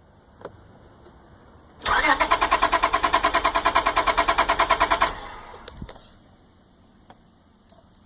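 An engine is cranked by its starter motor for about three seconds with a fast, even pulsing, and it does not catch and run. The engine won't start.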